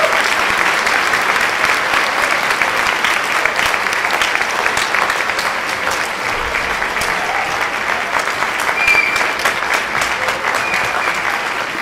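Audience applauding, a dense steady clapping of many hands that eases slightly near the end.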